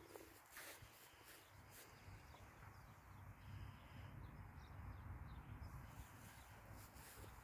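Near silence: a faint low rumble with a few faint bird chirps in the middle.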